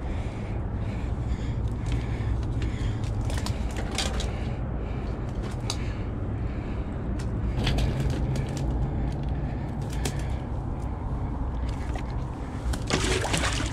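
A steady low rumble in the background, with scattered clicks and rustles as a striped bass is handled over the rocks at the water's edge. A short splash near the end as the fish is let back into the river.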